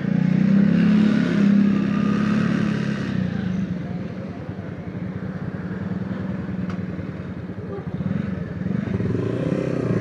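Single-cylinder engine of a 70cc motorcycle running at low speed, louder for about the first three seconds, then quieter and steady.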